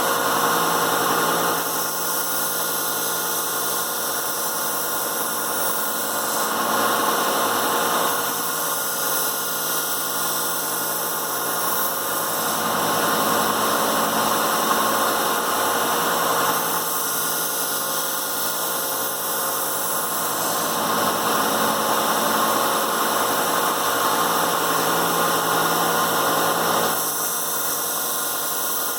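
1x30 belt sander running steadily with a 400-grit belt, with a knife edge drawn lightly across the belt in several passes, each pass adding a louder grinding hiss: the final passes that knock the burr off and polish the edge.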